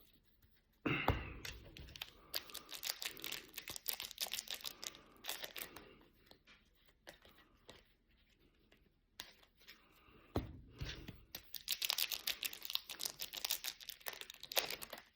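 Trading card packs being handled: foil pack wrappers crinkling and tearing, and cards clicking as they are shuffled and flicked through. Two bursts of this, each starting with a thump, with a quieter stretch between them.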